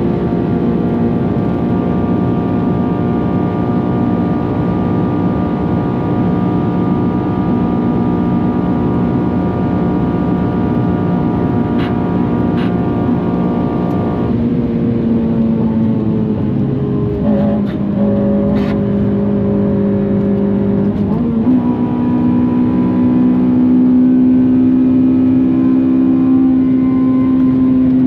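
Honda Civic FN2 Type R's K20 four-cylinder engine running hard at steady revs, its pitch dropping about halfway through, then rising again a few seconds later and holding.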